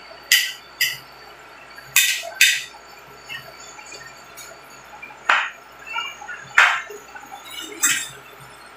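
Metal spoon and fork clinking and scraping against a ceramic plate, with plates knocking on the table: about seven sharp clinks spread through, over the faint steady hum of an air conditioner.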